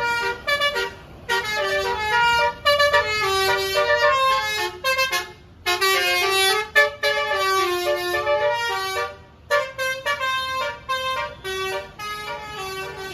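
Basuri telolet bus horn playing a tune: a run of short held horn notes stepping up and down in pitch, in phrases with brief pauses between them.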